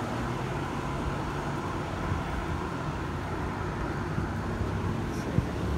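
Steady low rumble of city street traffic, picked up by a phone's built-in microphone worn on a cyclist's chest.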